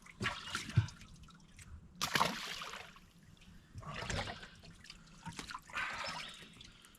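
Water splashing and trickling in a boat's live well, in about four short bursts.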